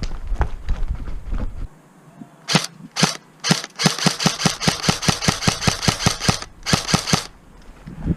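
Airsoft gun firing: three single shots about half a second apart, then a fast run of shots at about five a second, a short pause, and a quick string of four more.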